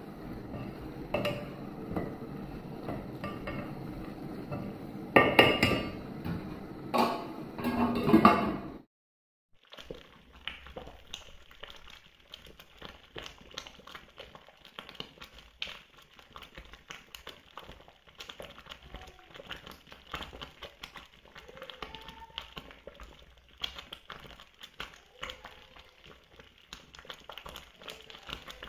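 A thick wooden pestle mashing and stirring stew in an aluminium pot, with several hard knocks against the pot about five to eight seconds in. After a cut, a pot of water with flour heaped in it bubbles faintly with fine crackling.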